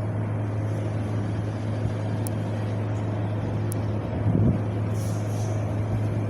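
Wind blowing steadily, a continuous rushing with a deep low rumble, swelling into a stronger gust about four seconds in.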